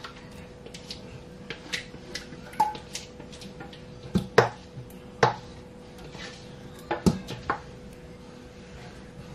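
Metal pans clinking and knocking now and then as a metal tray is tipped against a stainless steel roasting pan and the leftover chile sauce is scraped out onto the meat, with a cluster of knocks about four seconds in and again about seven seconds in. A faint steady hum sits underneath.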